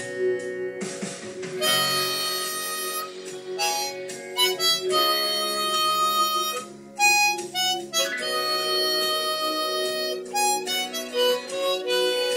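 Diatonic harmonica in the key of B played as a melodic solo: long held notes changing pitch from phrase to phrase, with a short break about seven seconds in.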